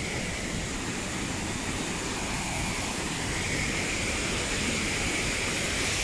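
Keila River water rushing over shallow rapids and the nearby falls: a steady, even rush with no break.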